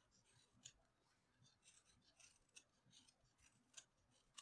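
Knife blade shaving small chips from the end of a round wooden stool leg: an irregular run of short, faint scraping cuts, about three a second, the sharpest one near the end.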